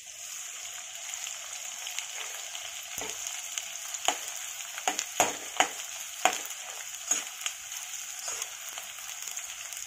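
Edible gum (dink) frying in hot ghee in a kadhai: a steady sizzle with many scattered sharp crackling pops, thickest around the middle.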